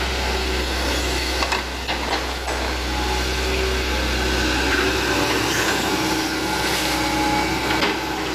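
Hitachi Zaxis 110MF hydraulic excavator running steadily with a low engine hum and a steady whine as it tracks along a dirt road and brings its boom round over a ditch, with a few knocks between one and three seconds in.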